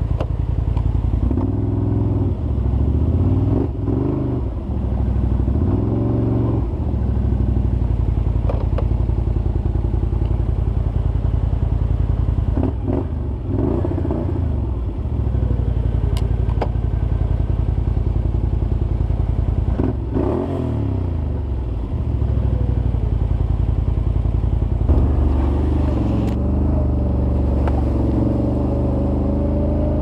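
Can-Am Outlander 800 XT ATV's V-twin engine running through an HMF Swamp XL slip-on exhaust, revving up and dropping back in several short bursts as it crawls over creek-bed gravel, with some clatter. The engine sound changes about 25 s in.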